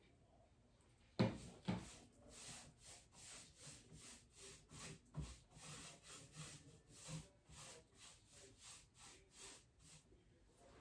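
Paintbrush stroking back and forth over the wooden dresser, brushing on a second coat of paint, in a steady run of soft strokes about two to three a second. Two sharp knocks come a little over a second in, the loudest sounds.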